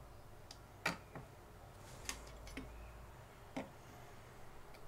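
Handheld battery spot welder firing pulses through its copper electrodes to weld a nickel strip onto a lithium cell: three sharp snapping clicks about a second and a half apart, with a few fainter ticks between.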